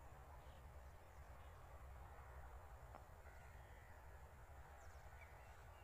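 Near silence: faint open-air ambience with a low rumble and a few faint, short bird chirps.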